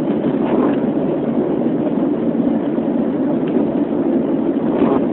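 Steady rumble of a car's engine and road noise, heard from inside the cabin.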